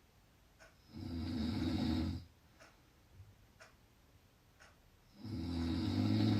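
A person snoring loudly: two low-pitched snores, each just over a second long, about four seconds apart.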